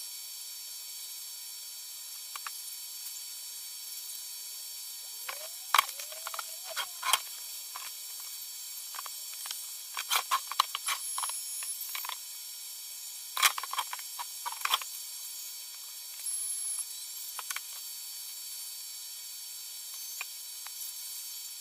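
Small parts being handled at a workbench: scattered light clicks and taps in short clusters, with a brief rising squeak about five seconds in, over a steady hiss.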